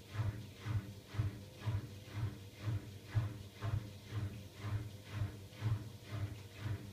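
Siemens iQ700 front-loading washing machine tumbling its load at slow drum speed during a Rapid 20 programme, with a low thump and swish of laundry and water about twice a second.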